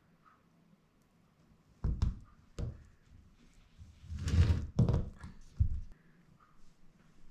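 A few dull thunks and knocks, about four seconds' worth, with a short noisy scrape in the middle: something being handled and set down on a hard surface.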